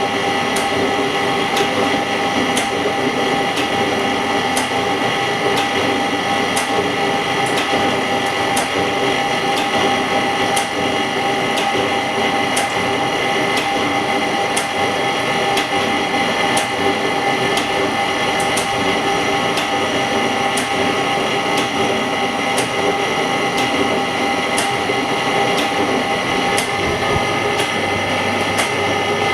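Semi-automatic LCD separator running as its steel cutting wire separates cracked front glass from a phone LCD: a steady mechanical whine with a sharp click about once a second.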